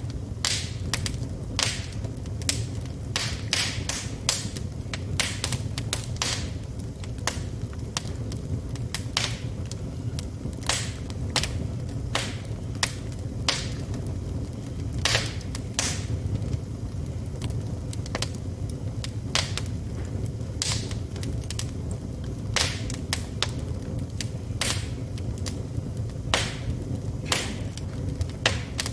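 Wood fire burning in a fireplace, crackling with frequent, irregular sharp pops over a steady low rumble.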